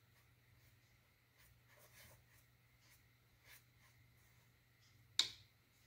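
Faint scratchy strokes of a small paintbrush dabbing acrylic paint onto a canvas panel, with one sharp click a little over five seconds in.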